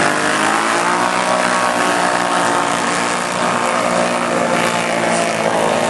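Several ATV engines running hard at high revs as the quads churn through a mud pit, a steady mix of overlapping engine notes.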